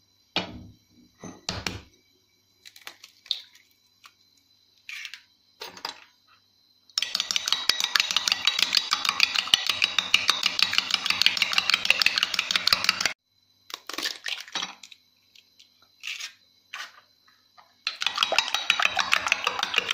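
A few separate knocks and clicks of eggs being cracked into a glass bowl. Then a fork beats the eggs in the bowl, clinking rapidly against the glass in two spells, the first about six seconds long, the second starting near the end, with a pause and a few taps between.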